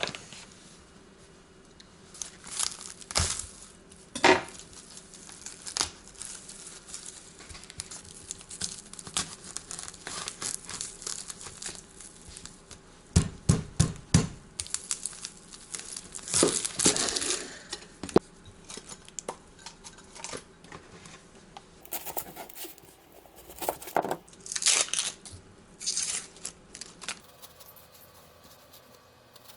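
Kitchen preparation sounds: packaging crinkling and tearing, with scattered knocks and clinks of dishes and utensils.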